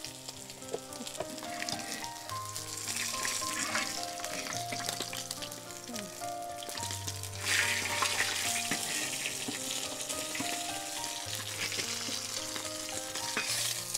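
Spanish mackerel steaks sizzling in hot oil in a large wok, the frying hiss swelling about halfway through. Soft background music with held notes plays underneath.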